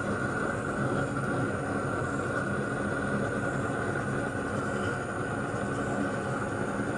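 Steady mechanical hum and hiss with a few fixed tones, no separate knocks or clicks.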